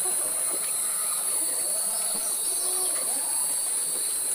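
Forest ambience: a steady, high-pitched insect drone with several birds calling over it in short, curving notes.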